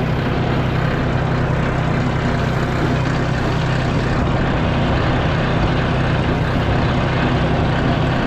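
Vehicle engine running steadily at a constant speed, with an even low hum.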